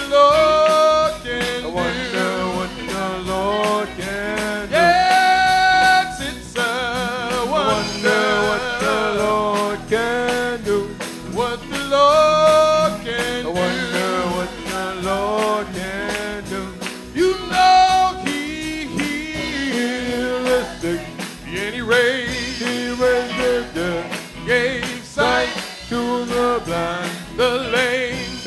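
Live gospel singing led by a man at a microphone, with a live church band keeping a steady beat.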